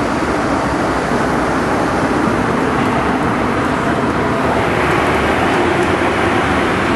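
Steady cabin noise of a Cessna Citation V Ultra business jet in flight: a constant rush of airflow and turbofan engine noise heard from inside the cockpit.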